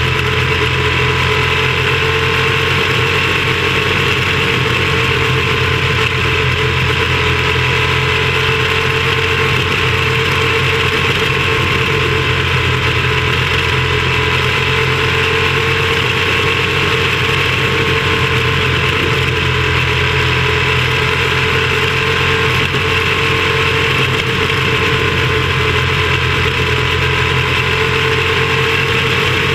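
Small racing engine of a caged open-wheel race car running hard and steady through the laps, its pitch rising and falling only slightly.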